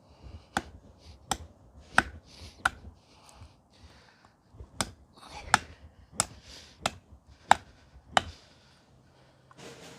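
A forged machete-style steel knife chopping into hard wood: about ten sharp blows, roughly one every 0.7 seconds, in two runs with a short pause between them.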